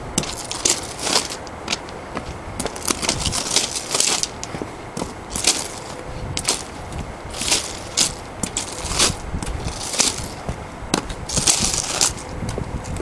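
Footsteps crunching on gravel at a walking pace, about one step a second.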